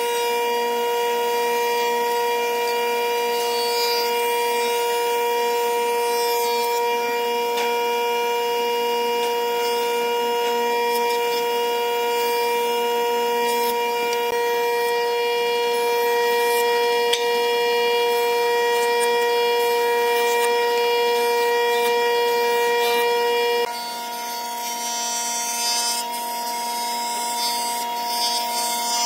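Jointer running, its spinning cutterhead giving a steady high whine with several fixed tones, while boards are fed over it and planed with a high hiss of cutting wood. About three-quarters of the way through the strongest tone stops and the level drops, and the cutting hiss becomes more uneven.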